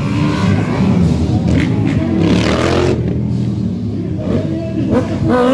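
Motorcycle engines revving, their pitch rising and falling again and again, with the loudest rev about two to three seconds in.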